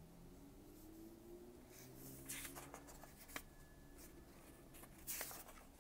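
Faint scratching of a red colored pencil sketching on paper: a few quick strokes about two seconds in and again near the end, with a light tap in between.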